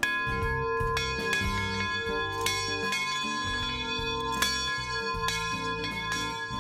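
Large hanging bell rung by pulling its rope: struck several times, about every one to two seconds, its tones ringing on between strikes. Background music plays underneath.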